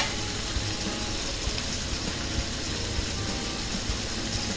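Wok of Thai red curry with chicken offal sizzling and bubbling steadily over the heat.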